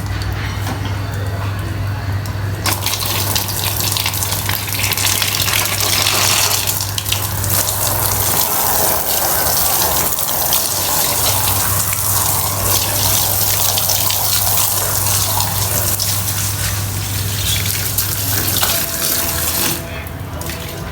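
Water spraying hard and steadily as a soaked rug is rinsed, with a steady low hum underneath. The spraying starts a few seconds in and stops shortly before the end.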